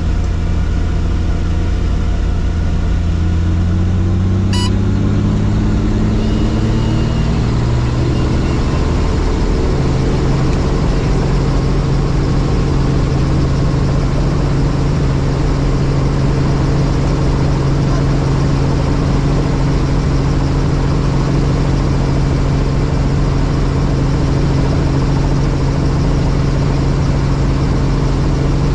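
Helicopter turbine and rotors spooling up: a whine that rises steadily in pitch for about the first ten seconds, then settles into a steady run at flight speed. A short beep sounds about four seconds in.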